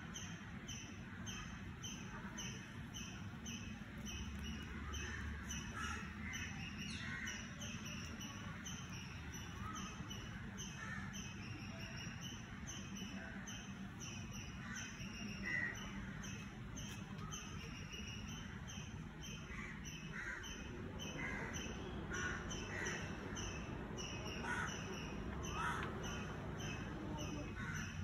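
Garden ambience: birds calling, with a regular high chirping that repeats about two or three times a second throughout and scattered irregular chirps and calls over it.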